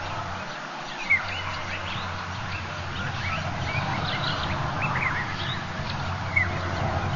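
Short, sharp, high chirping calls repeating about every second, with a busier patch of twittering in the middle and the two loudest chirps about a second in and near the end, over a steady low hum.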